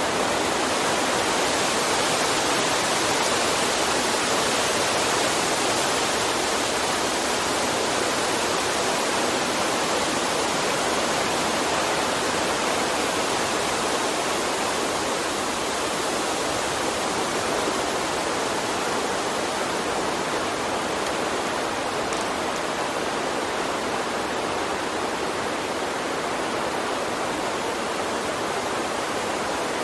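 Gentle water stream running, a steady, even rush of water with no breaks.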